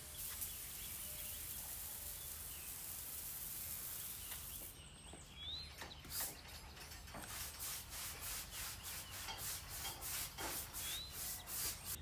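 A stiff brush scrubbing a surface in quick repeated strokes, about three a second, after a steady hiss that stops about five seconds in.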